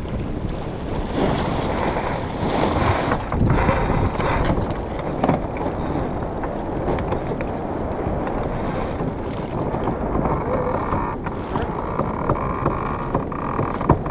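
Wind buffeting the microphone over the rush of water along the hull of a sailboat heeled under sail, with a few light clicks near the end.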